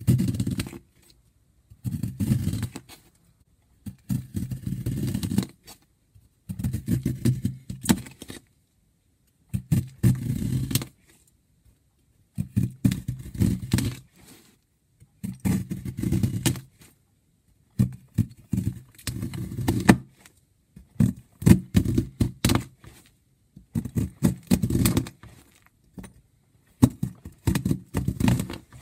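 Blocks of gym chalk worked close to the microphone. About a dozen crunchy, crackly bursts, each a second or two long, with short silences between them, coming a little faster toward the end.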